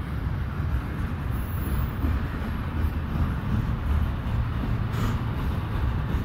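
Double-stack intermodal container freight train rolling past close by, a steady low rumble of its wagons' wheels on the rails.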